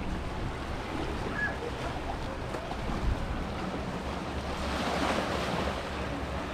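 Sea waves washing in, with one wash swelling about five seconds in, over wind on the microphone and a steady low hum.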